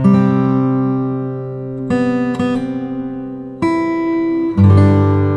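Background music: acoustic guitar strumming chords, a new chord struck about every one to two seconds and left to ring.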